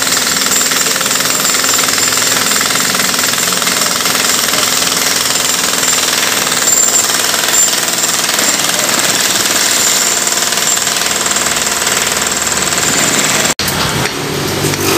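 Jackhammer breaking concrete, a continuous rapid hammering that cuts off suddenly near the end.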